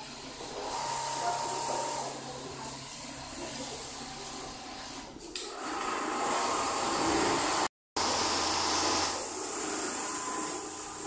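Steady hissing whir of a factory floor with Richpeace multi-head automatic template sewing machines running. The sound cuts out for a moment about eight seconds in.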